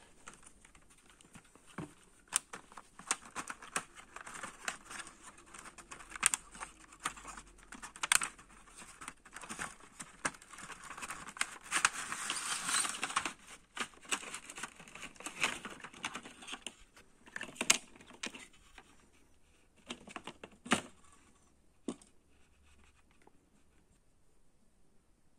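Cardboard box and clear plastic packaging being handled and opened: crinkling, rustling plastic with scattered sharp clicks and taps. It is busiest in the middle and dies away near the end.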